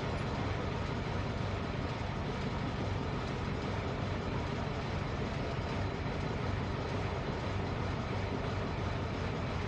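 Car engine idling steadily, a low even hum with no change in speed, while the car is checked for vibration at idle.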